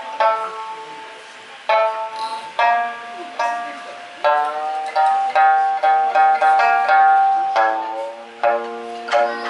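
Live music on plucked string instruments, an acoustic guitar among them: a melody of single plucked notes, each ringing on and fading, over a steady low note.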